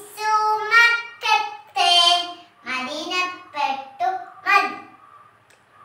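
A young girl singing a Malayalam Islamic devotional song unaccompanied, in a high child's voice, in short sung phrases that end a little before the end.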